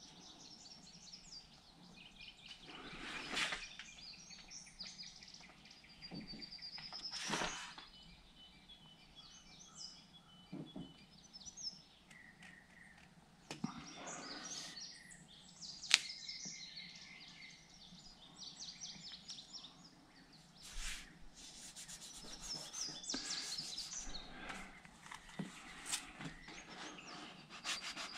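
Faint birdsong, chirps on and off throughout, with a few brief rustles and a sharp click about two-thirds of the way through as a large vinyl decal on its paper backing is handled against a boat hull.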